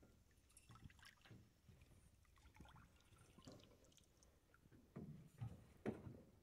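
Quiet water sounds around a small aluminium boat: faint lapping and light knocks, with a few louder splashes about five to six seconds in.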